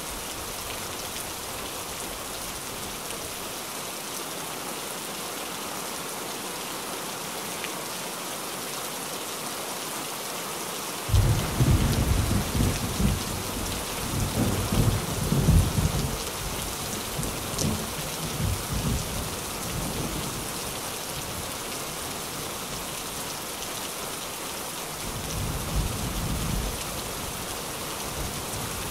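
Steady rain drumming on a tin roof. About eleven seconds in, thunder breaks in suddenly and rumbles unevenly for several seconds, and a second, fainter rumble of thunder follows near the end.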